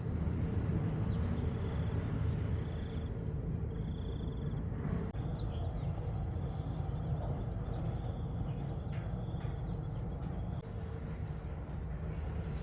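Insects trilling steadily in several high, thin, unbroken tones, one pulsing rapidly, over a continuous low rumble, with a few faint clicks.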